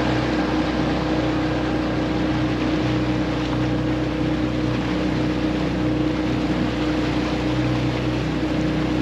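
Outboard motor of a small fishing boat running at a steady speed, with water and wind noise underneath.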